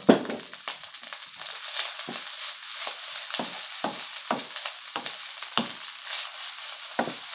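Egg fried rice sizzling in a nonstick wok, freshly dressed with olive oil, while a wooden spoon stirs and tosses it. The spoon knocks and scrapes against the pan about once or twice a second, loudest right at the start, over a steady sizzle.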